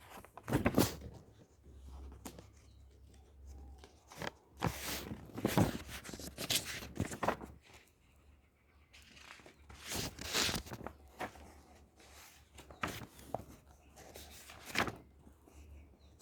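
Paper book being handled, its pages turned: a series of irregular papery rustles and flaps spaced a second or two apart.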